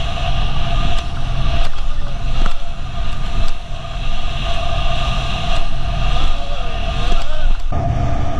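Motorboat running at speed: a steady engine drone with heavy low rumble and wind on the microphone, the hull knocking over the chop now and then. A faint wavering whine rises and falls about six to seven seconds in.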